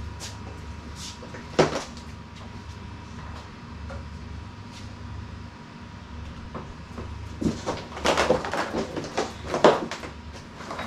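Clicks and knocks from e-bikes being handled: one sharp click about a second and a half in, then a run of clicks and knocks near the end, over a steady low hum.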